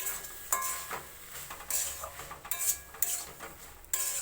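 A spoon scraping and clinking against a cooking pan as a thick vegetable curry is stirred, about five strokes with short metallic rings.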